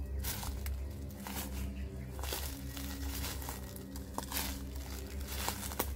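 Dry leaf litter crunching and crinkling underfoot: irregular footsteps through fallen leaves.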